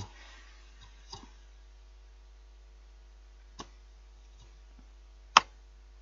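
A few light clicks and knocks from hands handling the opened plastic fan heater and its fan wheel, the loudest a sharp click near the end, over a faint steady hum.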